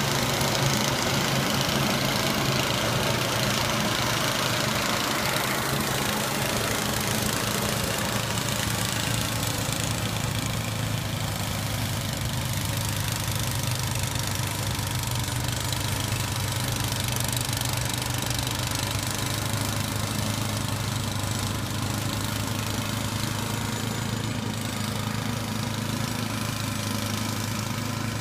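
Case 644 garden tractor and its snow blower running steadily at a constant pitch while the blower throws snow.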